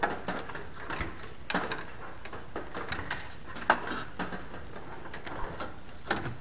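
Scattered light clicks, ticks and scrapes as a throttle cable is threaded and pulled through an ultralight's aluminium tube frame, with one sharper click a little past halfway.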